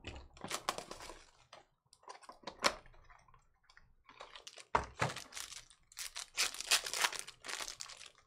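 A cardboard trading-card box (Panini Mosaic Choice) being opened and handled: irregular rustling, scraping and light tearing of cardboard and packaging, with a couple of sharp cracks about a third and halfway in.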